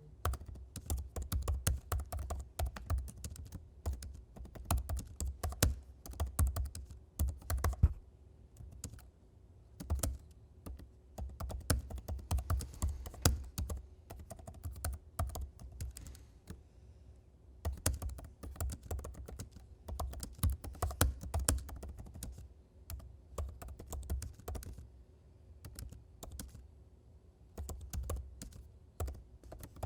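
Typing on a computer keyboard: rapid runs of key clicks in bursts, broken by short pauses, over a faint steady hum.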